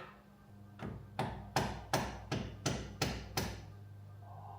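A hammer tapping about eight times in an even run, about three strikes a second, then stopping. It is knocking on engine parts to drive the pistons and connecting rods out of the block during teardown.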